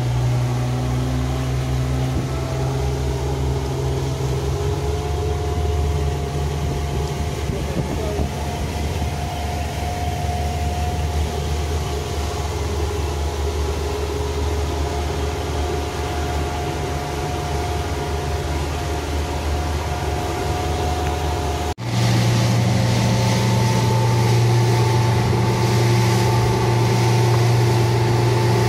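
Fishing boat's engine running steadily under way, over the rush of water from the wake. About three quarters of the way through there is a sudden break, after which the engine is louder and its note a little higher.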